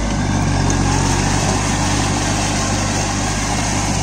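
Kubota Neostar B2441 mini tractor's three-cylinder diesel engine running steadily under load while it drives a rotary tiller through a flooded paddy.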